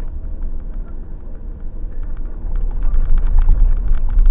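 Road and engine noise inside a moving Suzuki car's cabin: a steady low rumble that grows louder about halfway through as the car runs onto a steel truss bridge, with a scatter of light clicks and knocks.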